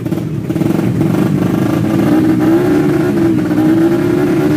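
Tuned 130cc four-stroke underbone drag bike engine held at high revs, a steady loud note that edges slightly higher about halfway through.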